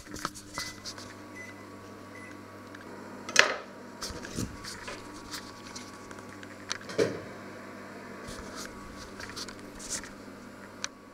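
Steady low hum of a kitchen appliance, with a few scattered knocks and clinks of stainless steel pots and lids being handled, the loudest about three and a half seconds in.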